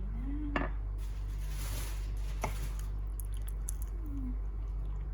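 Kitchen handling sounds from making a cup of hot chocolate: two sharp clinks of a cup or utensil, about two seconds apart, with a short hiss between them, over a steady low hum.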